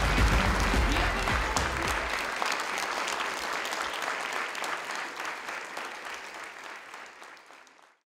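Audience applauding, a dense patter of claps that fades out gradually to nothing near the end. The tail of background music is heard under it for the first couple of seconds.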